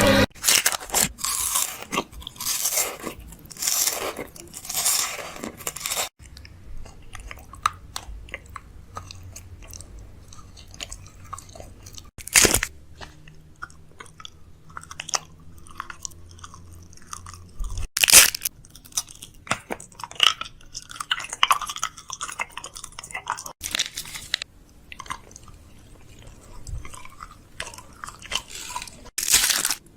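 Irregular crunching and crackling with sharp clicks, a few louder crunches standing out among quieter ones.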